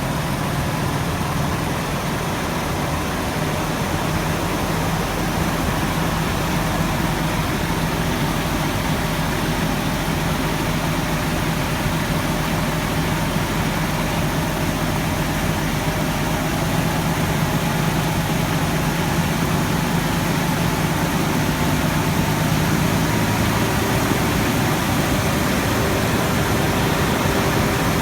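IVECO Stralis 560's Cursor 13 thirteen-litre six-cylinder turbodiesel idling steadily after a cold start, with a steady low hum and a faint higher tone above it. It gets slightly louder about two-thirds of the way through.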